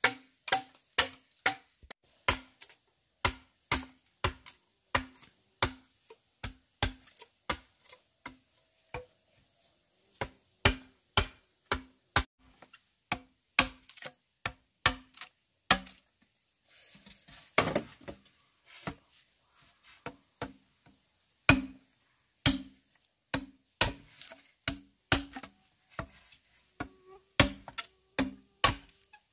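Steady chopping, one sharp blow roughly every half second, each with a short knocking ring. About halfway through the blows pause briefly for a longer scraping rustle, then carry on.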